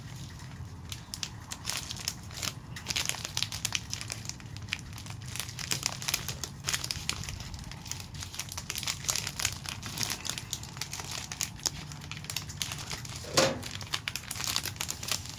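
Plastic packaging crinkling and crackling as a phone case is unwrapped by hand, in irregular bursts all the way through, with one brief louder sound near the end.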